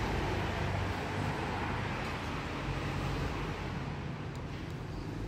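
Steady background hiss and rumble with faint light clicks of a small metal tool prying at the retaining pin of a cordless drill's plastic gearbox housing, two of them about four and a half seconds in.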